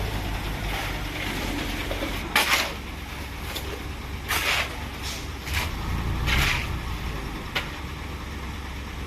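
Heavy engine running steadily at a low rumble, with short hissing bursts about every two seconds.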